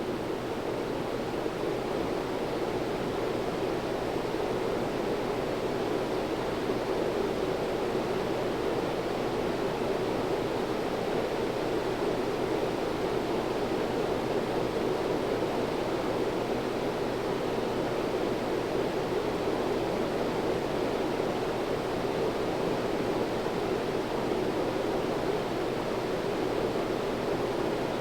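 Sears (CEI) 52-inch stamped-steel ceiling fan running: a steady rush of air from its blades over a faint low motor hum, growing slightly louder over the first few seconds.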